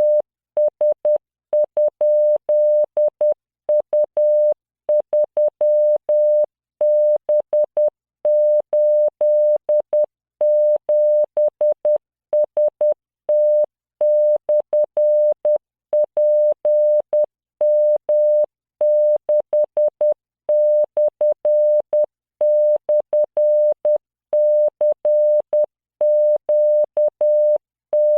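Computer-generated Morse code at 10 words per minute: a single 600 Hz tone keyed on and off in dots and dashes, sending random letters, numbers and punctuation as copying practice. Each start and stop of the tone carries a faint click.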